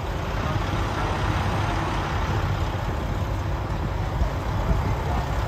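A road vehicle running steadily, with a low engine rumble under a constant wash of road noise.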